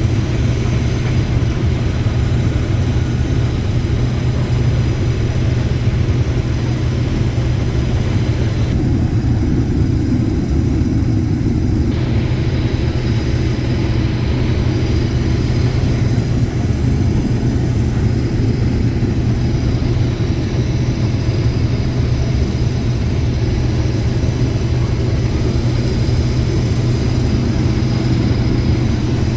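Heavy farm machinery engine running steadily under harvest load, a constant low drone.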